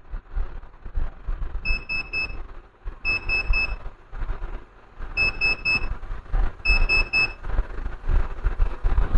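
Electronic beeper sounding high, short beeps in groups of four, four groups in all, about every one and a half to two seconds, over a low rumbling background noise.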